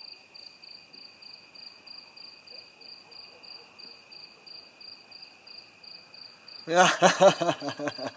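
Crickets chirping in a steady rhythm of about three chirps a second. Near the end a man bursts into loud laughter.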